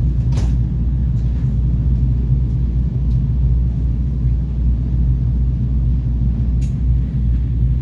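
Catamaran's engines running steadily under way, a deep hum heard from on board, with a short click about half a second in and another near the end.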